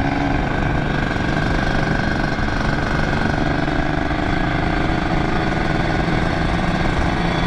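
Kawasaki Ninja 150 two-stroke single-cylinder motorcycle engine running steadily at cruising speed, heard from the rider's position, with wind noise on the microphone.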